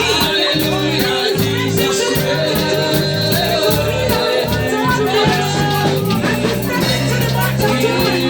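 Lively gospel worship music with a steady beat: bass notes, light percussion and singing voices.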